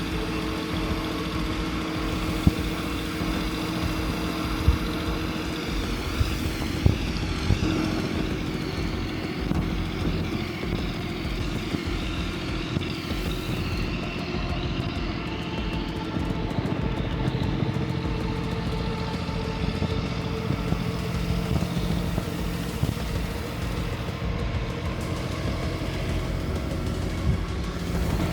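City street traffic: vehicle engines running steadily, with a few short sharp knocks in the first several seconds.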